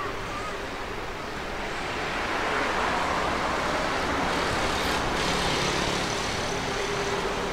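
A car approaching, its engine and tyre noise growing louder over the first few seconds and then holding steady.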